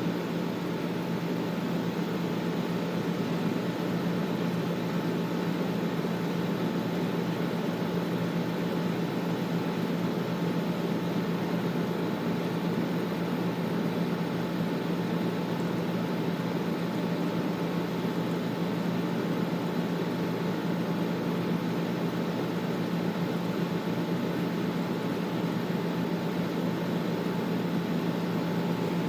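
Air conditioner running steadily: an even rush of air noise over a constant low hum, with a faint higher tone.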